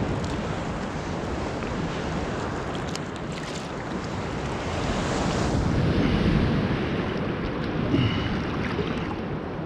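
Sea surf washing on the shore of the Barents Sea, with wind buffeting the microphone; the wash swells to its loudest about halfway through.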